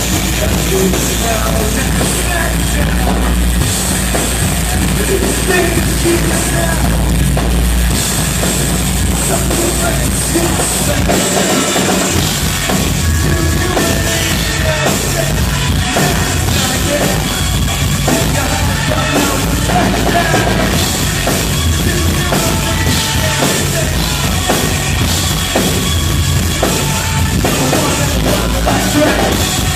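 Rock band playing a song live at full volume, a drum kit with kick drum driving it under the other instruments. A steady low bass gives way to a choppier pattern about a third of the way through.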